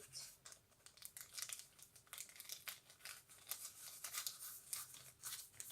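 Crinkly packaging being handled and rustled, a faint, irregular run of soft crackles.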